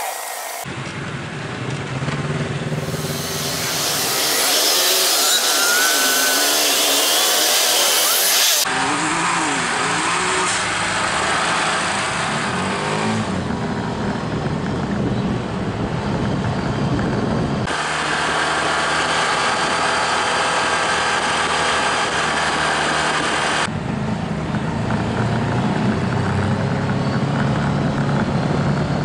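Side-by-side UTV engine running as it drives along a dirt trail, with wind noise on the microphone. The sound changes abruptly several times.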